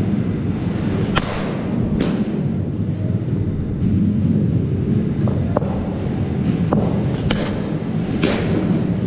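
Sharp knocks of a cricket ball meeting a bat and the netting during batting practice, echoing off the hall: a pair about a second in, a few lighter knocks mid-way, and another pair near the end, over a steady low rumble.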